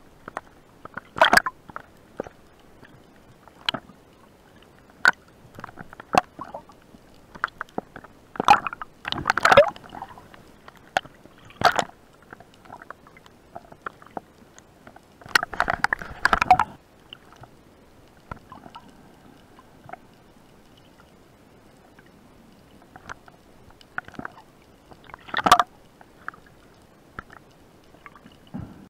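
Underwater sounds: scattered clicks and knocks with short bursts of bubbling. The loudest bursts come about 9 to 10 seconds in, around 16 seconds, and again near 25 seconds.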